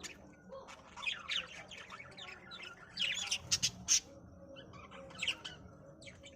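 Budgerigars chirping and squawking in short bursts of chatter, loudest about halfway through.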